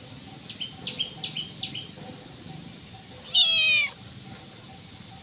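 A domestic cat meows once, a loud call about half a second long that falls slightly in pitch, about three and a half seconds in. Before it, a small bird chirps four quick times.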